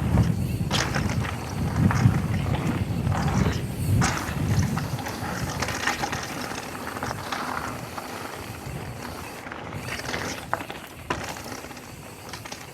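Mountain bike coasting down a dirt jump line, its rear freehub ratchet buzzing, with tyre rumble and scattered knocks from the bike over the jumps. Loudest in the first few seconds, then it fades.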